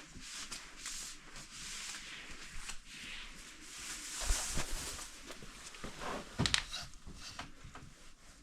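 Household handling noises: rubbing and scattered small clicks, with a couple of knocks about four and six seconds in.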